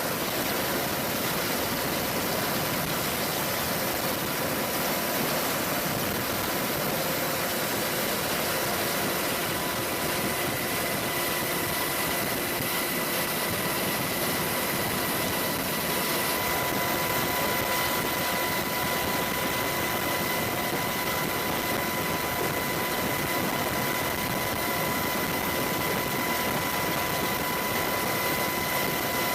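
Military helicopter turbine engines running steadily, a constant rushing noise with a high, even whine.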